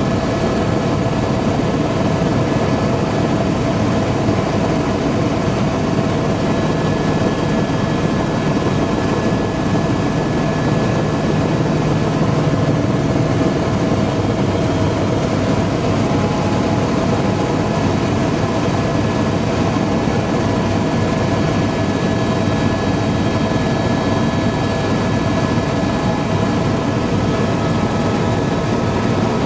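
Helicopter cabin noise in flight: a steady, loud drone of engine and rotor with a constant high whine.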